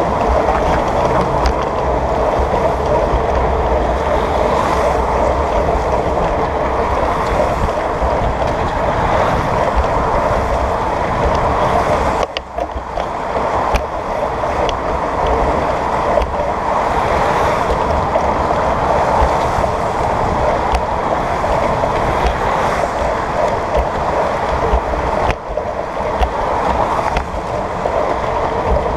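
Steady rushing noise of riding a bicycle into the wind: wind buffeting the handlebar-mounted camera's microphone, mixed with cars passing on the roadway alongside. It drops briefly twice, around the middle and near the end.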